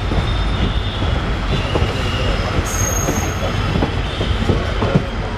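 Train rolling through station pointwork: a steady low rumble with irregular knocks of steel wheels over rail joints and crossings. Short high-pitched wheel squeals come and go, with a sharper, higher squeal about halfway through.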